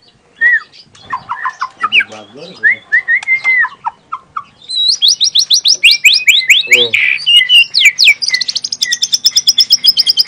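Young white-rumped shama (murai batu) singing: varied whistled phrases at first, then from about five seconds in a rapid burst of sharp descending notes running into a fast, even trill of repeated high notes.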